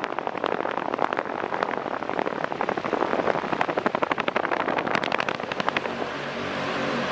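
Havells Speedster ceiling fan with four metal blades spinning up to its top speed: a rapid fluttering of air from the blades that grows stronger. About six seconds in it settles into a steady rush of air with a motor hum.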